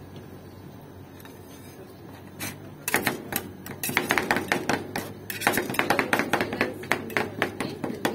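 Metal spatulas rapidly chopping fruit into the ice-cream base on the frozen steel plate of a rolled-ice-cream machine: a fast run of sharp taps that starts about three seconds in and keeps going.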